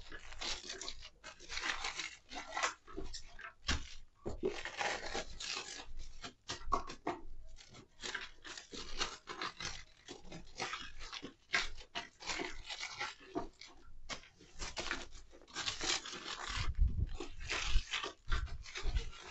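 Clear plastic wrapper crinkling and rustling in irregular bursts as firecracker packs are wrapped by hand, with a few dull thuds of handling near the end.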